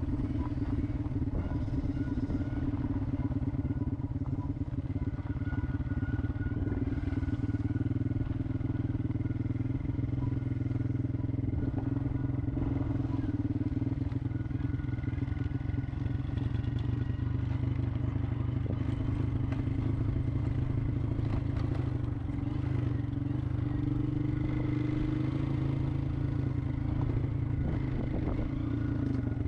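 An engine running steadily at an even speed, with a low drone.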